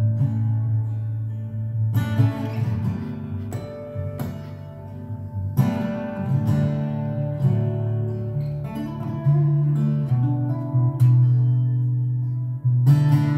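Solo acoustic guitar played fingerstyle, deep bass notes ringing under plucked chords, with a few sharp accented strokes.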